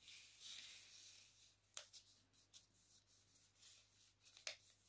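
Faint rustling of a sheet of paper being folded and creased by hand. A sliding rustle fills the first second, and a few sharp paper ticks follow, the clearest about two seconds in and near the end.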